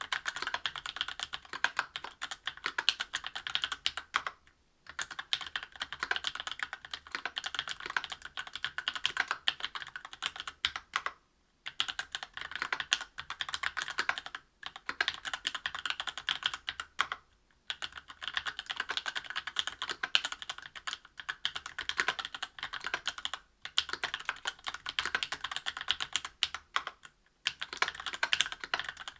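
Fast typing on a mechanical keyboard with lubed Tecsee Oreo 63.5 g linear switches, aluminium plate and GMK keycaps: a rapid run of keystrokes broken by short pauses every few seconds.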